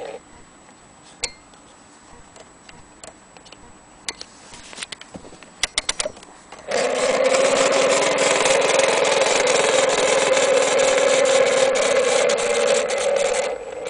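Antique gramophone mechanism: scattered light mechanical clicks and ticks, then about seven seconds in a loud steady whirring buzz with crackle that cuts off shortly before the end.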